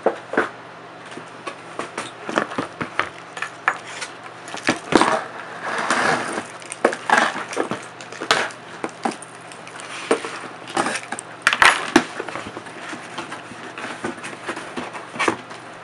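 A cardboard shipping box being handled and opened by hand: its flaps scraping and rustling, with many short knocks and taps, the loudest about five seconds in and again near twelve seconds.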